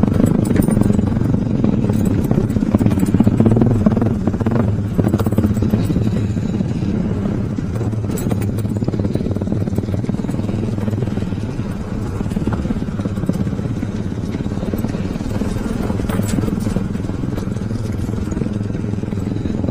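Motorcycle engine running steadily as the bike rides over a rough, muddy road, with a few brief knocks.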